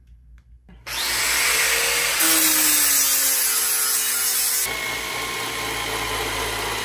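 Belt grinder starts running about a second in, grinding a welded copper angle on the belt with a steady rushing hiss. The grinding is harshest for a couple of seconds midway, where the motor's pitch falls a little under the load, and then eases to a steadier hiss.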